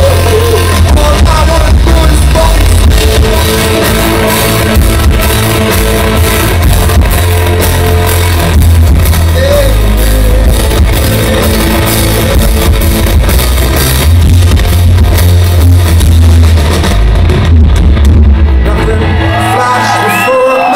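Rock band playing live and loud: electric guitars, heavy bass and drum kit with a singer. Near the end the bass and drums fall away and the crowd begins shouting and whooping.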